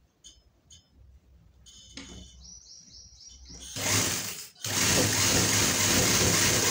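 Juki industrial sewing machine stitching down folded pleats in fabric. It runs in a short burst about four seconds in, then steadily and loudly from about five seconds on. Before it starts, a quick series of high chirps.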